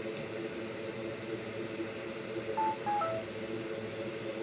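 A quick run of four short electronic beeps at different pitches, like a little jingle, about two and a half seconds in, over a steady low hum of bench equipment.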